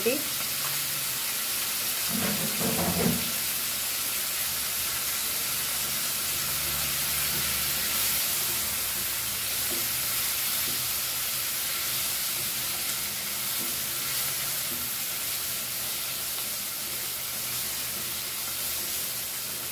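Chopped onion, tomato and green chillies sizzling steadily in a non-stick kadai, stirred now and then with a silicone spatula.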